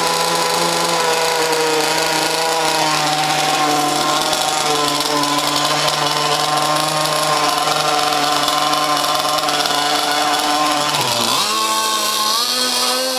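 Zenoah 27cc two-stroke gas engine of an RC mono hull boat running at a steady high speed, then about eleven seconds in it dips briefly and revs up to a higher pitch as the boat is sent off across the water.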